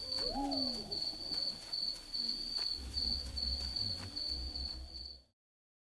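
Crickets chirping in a steady high-pitched pulsed trill, about two chirps a second, with a brief low call near the start and a low rumble in the second half; the sound cuts off suddenly about five seconds in.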